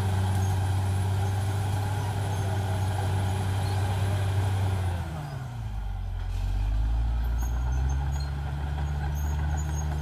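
Caterpillar D6R XL bulldozer's diesel engine running steadily at high revs. About halfway through it drops sharply in pitch, then settles at a lower, steady speed.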